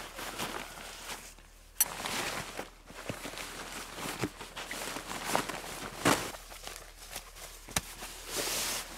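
Synthetic tent and groundsheet fabric rustling and crinkling as it is unfolded and spread out by hand, with scattered handling knocks. There is a sharp snap about two seconds in.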